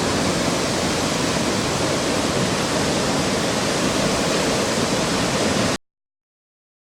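Steady rush of water pouring down a small waterfall. Near the end it cuts off suddenly into silence.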